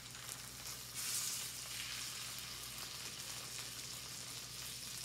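Salmon fillets sizzling in brown butter in a stainless steel skillet as they are turned onto the skin side to crisp. The sizzle swells about a second in and then holds steady.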